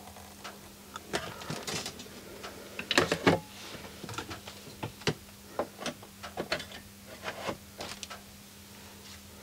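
Irregular light clicks and rustling from hands handling multimeter test probes on a circuit board, over a steady low electrical hum.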